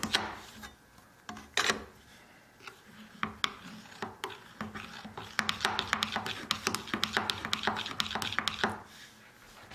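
Steel cabinet scraper worked in quick, short scraping strokes: a few scattered strokes at first, then a dense, fast run of strokes in the second half that stops near the end.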